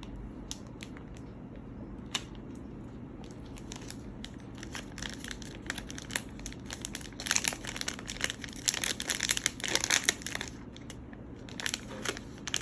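Packaging crinkling and crackling as it is handled and pulled open by hand, in scattered crackles with a denser stretch from about seven to ten seconds in.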